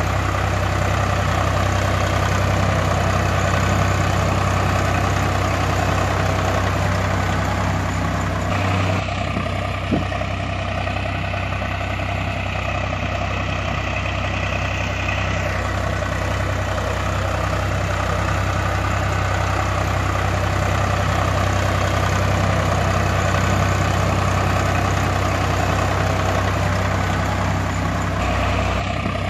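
Tractor engine idling steadily, a recorded engine sound laid over a toy tractor pulling trailers; its upper tone shifts abruptly at a few edit points.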